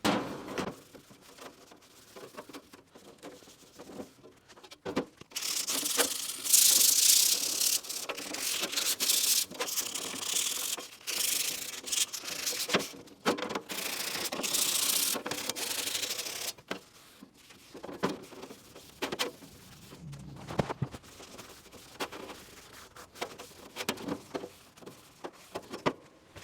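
A rag rubbing back and forth over a metal part, wiping it down with grease and wax remover before paint. The rubbing runs for about ten seconds from roughly five seconds in, with scattered knocks and handling clatter before and after.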